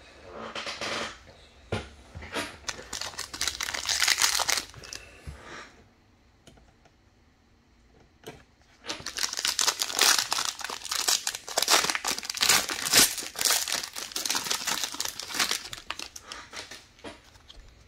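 Silver foil wrapper of a 2020-21 Impeccable trading-card pack crinkling as it is handled and torn open. It comes in two spells of dense crackling, from about half a second in and from about nine seconds in, with a quiet gap between them.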